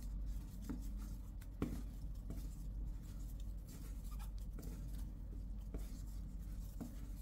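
Faint rubbing and ticking of a metal crochet hook pulling flat polyester cord through stitches as double crochets are worked, with a sharper click about a second and a half in.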